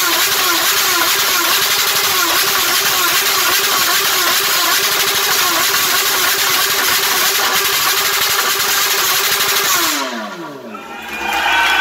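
Motorcycle engine held at high revs for about ten seconds, its note wavering slightly, then cut, the pitch falling away quickly as it spins down.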